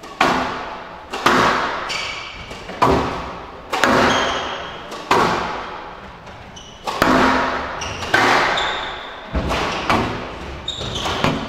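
Squash rally: the ball is struck hard about once a second, each hit ringing out with a long echo in the enclosed court. Short high squeaks come between some of the hits.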